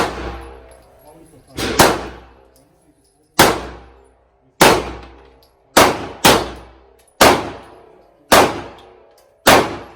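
Gunshots at a shooting range: about ten single shots at a steady pace of roughly one a second, with two close pairs about two seconds and six seconds in. Each shot trails off in a ringing echo.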